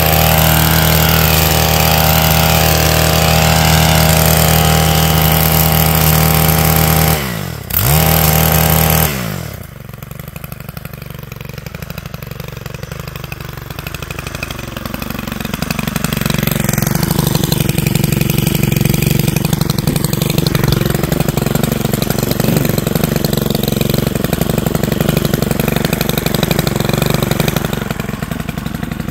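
Stihl KombiMotor KM 131R's small 4-MIX engine running at high throttle, driving a power scythe attachment. The revs drop sharply about seven seconds in and pick up again, then fall about two seconds later to a lower speed, which it holds for the rest.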